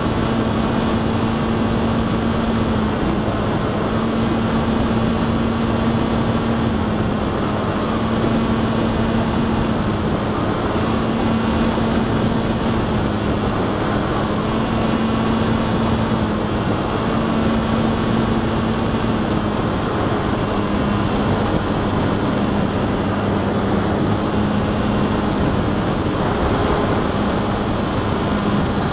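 Steady motor and airflow noise from an FPV model aircraft in flight, picked up on board. A short high beep repeats about once every second and a quarter, and a low hum under the noise breaks off at a similar pace.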